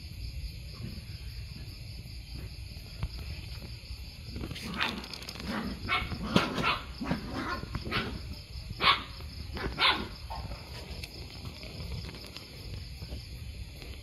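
A run of about eight short, sharp barks between about five and ten seconds in, over a steady high chirring of night insects.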